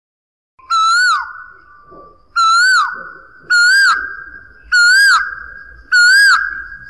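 Male Asian koel calling its repeated two-note "ku-oo", five times in quick succession, the calls coming faster after the first. Each call is a held note that swoops up and then drops sharply.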